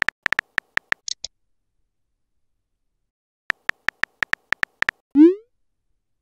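Synthetic phone-keyboard tap clicks of a texting-story animation: a quick run of about ten taps with a short high chirp just after, then a pause, then another run of about ten taps as a reply is typed. It ends with a short rising swoop as the message is sent.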